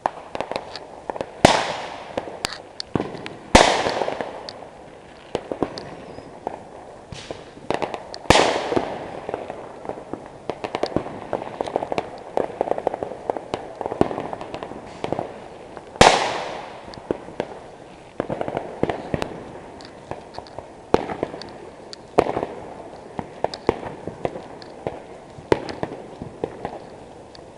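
Fireworks going off: a continual crackle of firecracker pops with four much louder bangs, each followed by a long fading echo.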